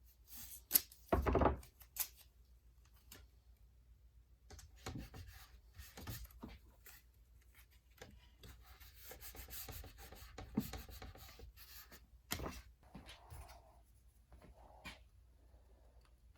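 Masking tape being pulled off the roll, torn and rubbed down by hand: scattered crackles and rubbing with a louder rip about a second in.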